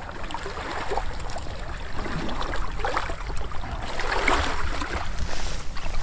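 Waders pushing through a flowing river, water swishing and splashing around the legs in uneven surges, loudest about four seconds in, over the river's steady rush and a constant low rumble.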